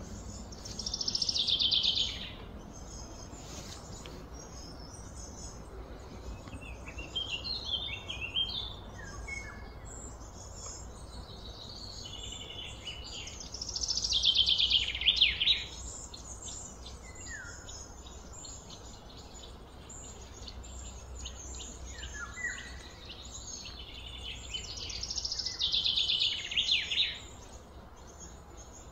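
A bird singing a loud, high song phrase that sweeps downward in a rapid series of notes, three times about twelve seconds apart, with softer short chirps from birds between the phrases.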